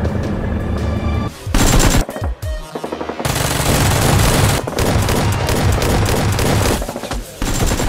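Background music that breaks off about a second and a half in, followed by several bursts of rapid machine-gun-style gunfire, the longest lasting a few seconds.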